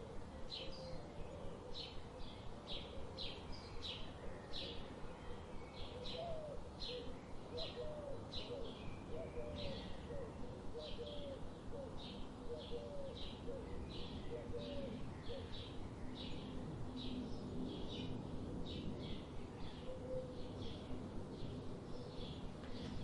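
Birds chirping: a steady run of short high chirps, about two a second, with a series of lower rising-and-falling calls in the middle, over a faint outdoor background hiss.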